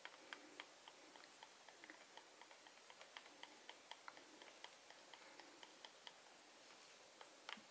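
Wooden craft stick stirring acrylic paint in a small plastic cup, its faint, irregular ticks and clicks against the cup's sides a few times a second, with a sharper click near the end.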